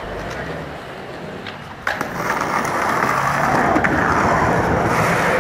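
Skateboard wheels rolling over rough pavement, a steady rough noise that grows louder after a sharp knock about two seconds in.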